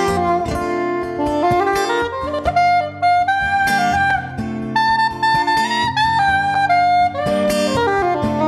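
Soprano saxophone playing a melodic line of held and moving notes over acoustic guitar accompaniment.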